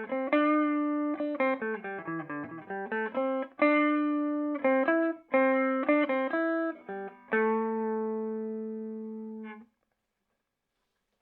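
Electric guitar played clean through a Peavey Bandit 112 combo amp (clean channel, modern voicing, high-gain input): a melodic phrase of single picked notes with a falling run about two seconds in. It ends on a held note that rings for about two seconds and then cuts off suddenly.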